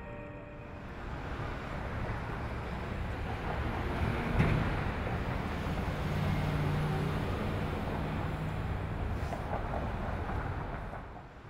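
Steady outdoor city background rumble, such as traffic noise, that swells through the middle and fades away near the end, with a single sharp thump about four and a half seconds in.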